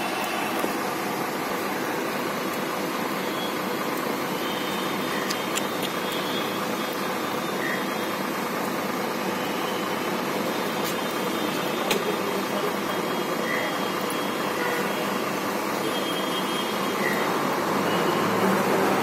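Tracked excavator's diesel engine running steadily at idle, a little louder near the end.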